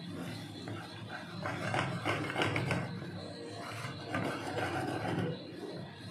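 Wooden spatula scraping and stirring a thick peanut butter sauce around a nonstick frying pan in repeated rasping strokes, loudest between about one and a half and three seconds in, over a steady low hum.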